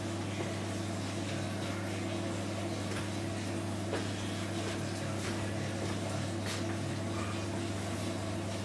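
Steady electric hum of a running Miele oven, with a few faint ticks.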